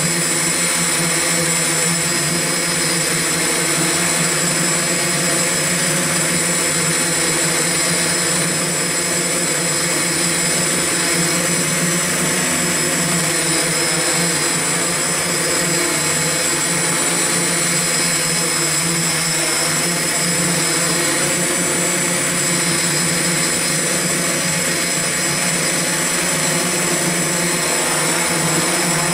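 Electric motors and propellers of an X8 coaxial octocopter running steadily in flight, heard from the camcorder it carries: a loud, even whir with several steady whining tones.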